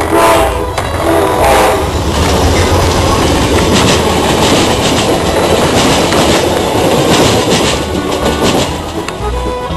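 CSX freight train passing: the locomotive's air horn sounds twice in the first two seconds, then the cars roll by with a steady rumble and rhythmic clickety-clack of wheels over rail joints.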